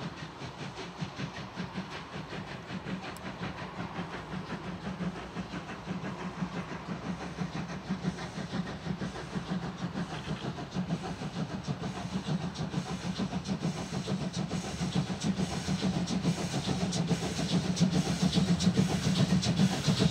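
DR class 44 three-cylinder 2-10-0 steam locomotive working hard under load, its exhaust beats in a quick, even chuffing rhythm. It grows louder as the locomotive approaches.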